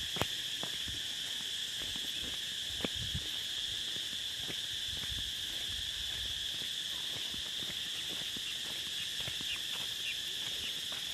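Steady high-pitched drone of an insect chorus, unbroken, with a few faint scattered clicks and one sharper click near the start.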